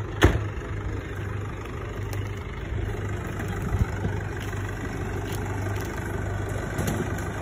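Tractor engine idling steadily, with one sharp knock about a quarter second in.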